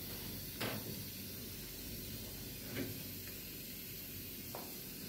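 A steady hiss, with three light plastic clicks and knocks as the inspiratory tubing is handled and fitted onto a CPAP humidifier chamber.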